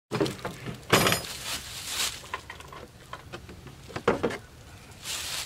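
A utility vehicle's plastic cargo-bed cover being lifted open and items in the bed being handled: a sharp knock about a second in, another just after four seconds, and smaller clicks and rattles between.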